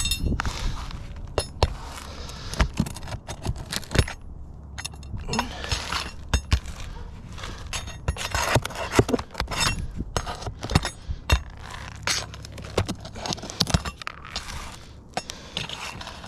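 Steel flat bar prying and scraping under asphalt roof shingles to pull roofing nails: an irregular run of sharp clicks, clinks and gritty scrapes.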